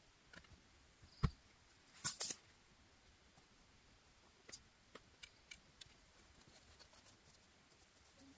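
Scattered faint clicks and knocks from gear being handled while setting up camp. There is a sharper knock about a second in, a quick run of clicks about two seconds in, and a few light ticks after that.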